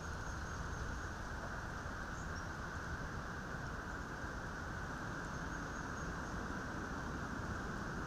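Steady outdoor background noise, an even low rush with no distinct events, and a few faint, thin, high squeaks now and then.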